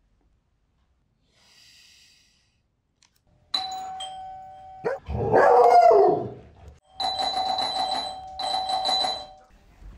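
Electronic doorbell chime ringing about three and a half seconds in, then twice more near the end, with steady tones. Between the first and second rings comes a loud, drawn-out vocal cry that rises and falls in pitch.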